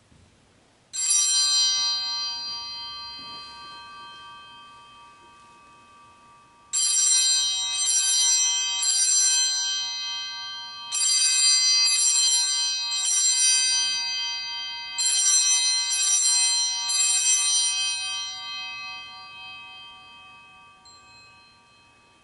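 Altar bell rung at the elevation of the chalice after its consecration: one ring about a second in that dies away slowly, then three sets of three rings about a second apart, each set left to fade.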